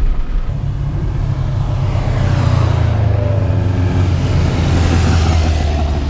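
Car engine droning at low revs, with a few tones that slide slowly down in pitch, over a hiss of road noise that swells and fades in the middle.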